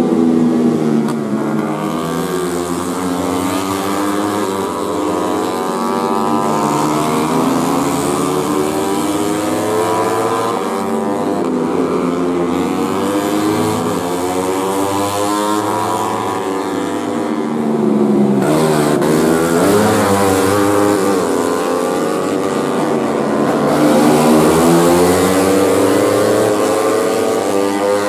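Racing motorcycle engines revving hard as the bikes pass one after another, their pitch climbing and dropping again and again through gear changes and throttle lifts, with engines overlapping at times.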